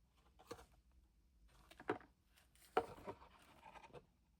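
Faint, scattered clicks and knocks of small tools and parts being handled and set down on a table, the loudest a sharp tap a little under three seconds in.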